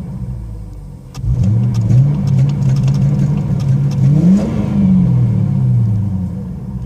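A 1994 Ford Thunderbird's engine through a glass-pack exhaust, revved once while still cold: the revs jump about a second in, climb slowly to a peak, then fall back toward idle near the end.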